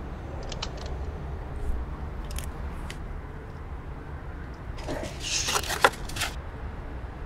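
Steady low rumble of city parking-lot background, with a few faint clicks and, about five seconds in, a short cluster of rustling and clicking handling noises, one click sharper than the rest.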